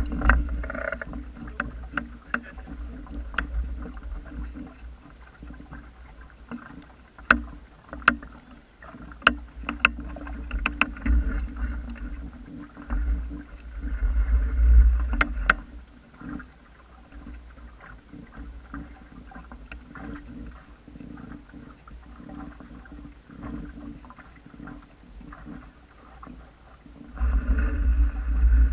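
Small wooden sailing dinghy moving through the water, water splashing and lapping at the hull, with gusts of wind buffeting the microphone, heaviest about halfway and near the end. A run of sharp clicks and knocks comes from about a quarter to just past halfway through.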